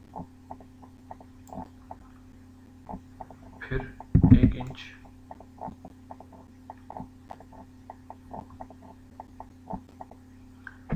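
Scattered light clicks of a computer keyboard and mouse, irregular and several a second at times, over a steady electrical hum. A short burst of voice comes about four seconds in.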